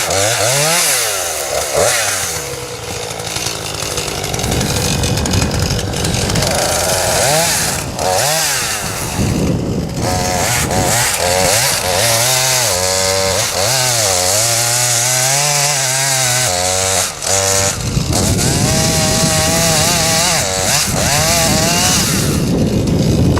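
Husqvarna chainsaw cutting into the trunk of a dead box elder, its engine pitch rising and falling repeatedly as it loads up and frees in the cut.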